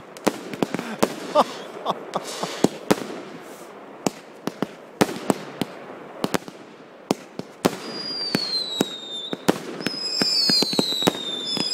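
Fireworks going off: a rapid string of sharp bangs and crackles. From about eight seconds in, several whistling fireworks join them, each whistle falling in pitch.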